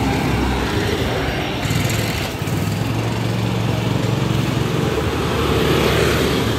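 Road traffic passing close by: a small engine drones steadily through the middle, and a passing vehicle swells louder near the end.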